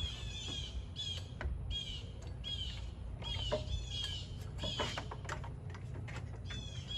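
Birds chirping over and over in short arched notes, with a few sharp clicks and knocks in between and a low steady rumble underneath.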